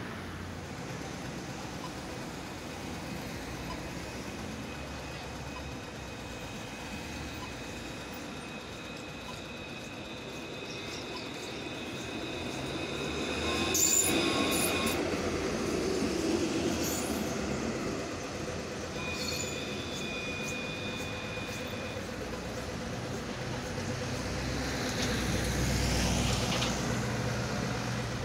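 Yarra Trams C-class (Alstom Citadis) tram passing close by over street traffic, loudest about halfway through, with clicks from its wheels on the track. Its steel wheels give thin, steady high squeals on the rails, first as it approaches and again briefly after it has passed.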